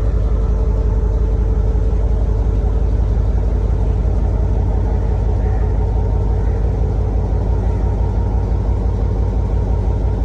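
Steady low rumble of a train, with a faint steady hum above it.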